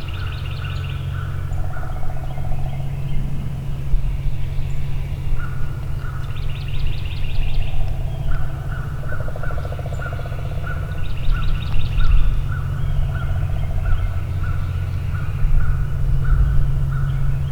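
Several wild birds calling over a steady low hum: short repeated notes and high trills come in every few seconds, and the low hum is the loudest thing throughout.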